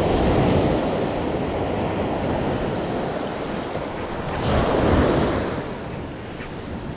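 Small surf waves breaking and washing up onto a sandy beach, with wind rumbling on the microphone. One wave breaks louder about four and a half seconds in.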